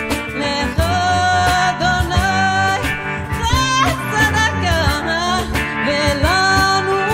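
Live band music: a woman singing long, ornamented notes over electric guitar and hand percussion, with a quick melodic run about halfway through.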